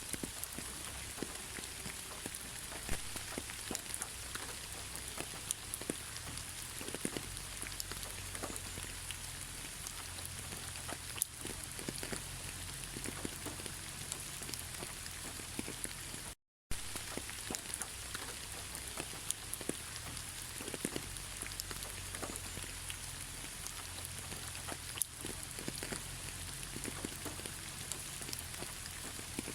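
Steady rain, with many individual drops ticking on a surface. The sound cuts out for a split second just past the middle, then carries on as before.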